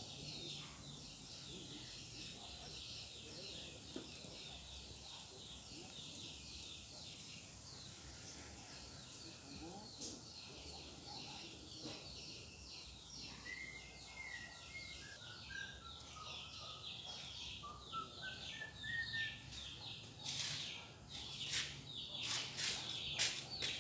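Outdoor bird chorus: many small birds chirping rapidly and continuously, with one bird singing a run of short whistled notes in the middle. Several sharp knocks or rustles come near the end.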